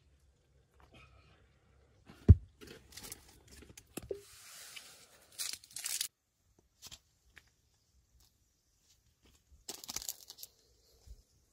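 Plastic food wrapping being handled: one sharp knock about two seconds in, then a few seconds of tearing and crinkling of plastic, and another short crinkle near the end.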